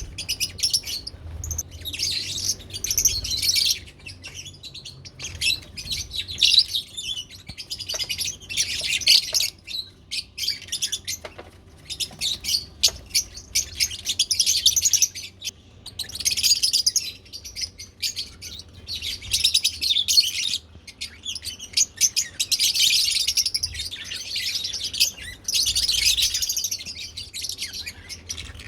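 Pet lovebirds chattering with high-pitched chirps, in busy bursts of a few seconds each separated by brief pauses.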